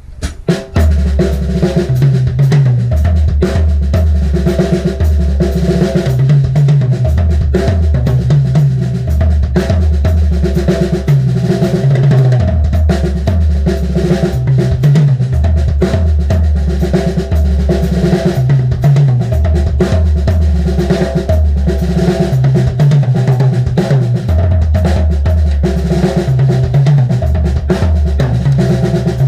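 Acoustic drum kit played in a busy solo of fast snare, bass drum and tom hits. Underneath run sustained low orchestral notes from a backing track, changing every second or two.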